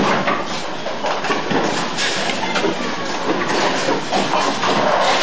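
Bowling alley din: balls rumbling down the lanes and pins clattering, with many knocks and faint voices.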